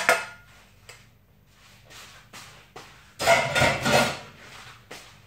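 Wooden spoon knocking against a metal cooking pot and its lid, then a louder clatter of kitchenware lasting about a second, a little past the halfway point.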